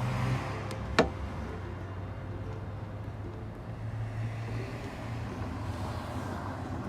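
Soft background music with held low notes. A single sharp click comes about a second in.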